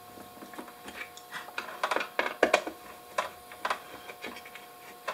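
DeWalt hand screwdriver backing small screws out of a circuit board mounted in a plastic cooktop housing: a run of irregular clicks and ticks as the bit and screws turn.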